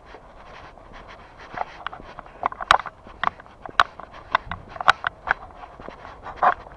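Footsteps of a person walking on a street, about two steps a second, some steps sharper and louder than others.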